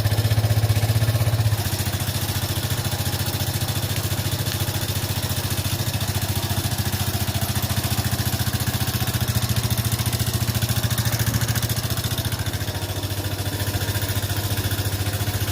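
Haojue DR 160 motorcycle's single-cylinder engine idling steadily, with an engine noise the owner considers abnormal. The idle drops slightly in level about a second and a half in.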